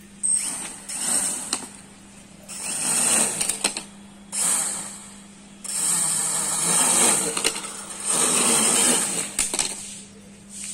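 Homemade quadcopter's motors and propellers spinning up in about six short bursts of throttle while the drone stays on the ground, with a steady low hum between bursts and a few sharp clicks. The drone is failing to lift off in stable flight.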